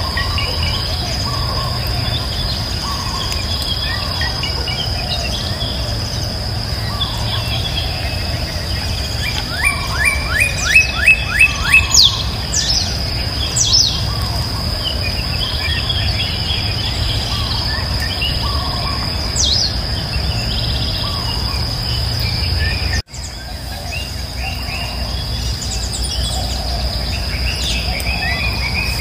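Rural outdoor ambience: insects keep up a steady high-pitched drone while birds chirp. A quick run of loud bird notes about ten seconds in is the loudest sound, and the sound drops out for an instant a little past halfway.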